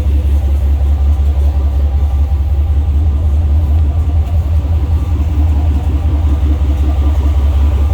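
1996 Corvette's LT1 5.7-litre V8 idling with a steady low rumble.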